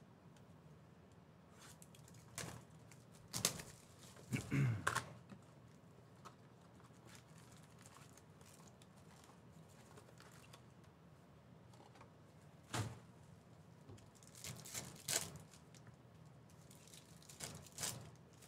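Foil trading-card packs handled and torn open: scattered crinkles and rips of the wrappers, with quiet gaps between.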